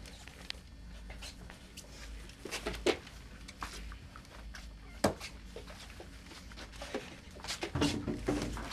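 Scattered clicks and knocks, the sharpest about three and five seconds in, over a low steady hum.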